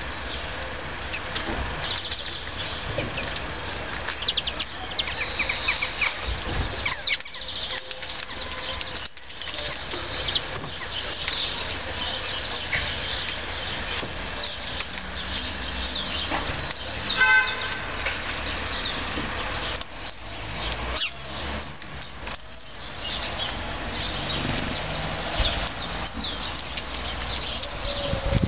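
Small songbirds chirping and twittering at a seed feeder, many short calls overlapping, with wing flutters as birds come and go. A steady low rumble of town traffic runs underneath.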